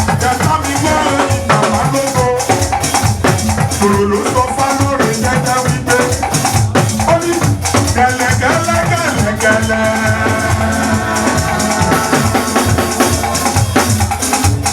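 Live church music: drums and a shaken rattle keep a fast, steady beat under a moving melody.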